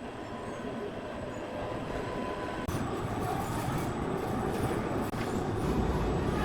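Heavy sawmill machinery running with a steady rumbling noise that slowly grows louder, with a faint click a little under three seconds in.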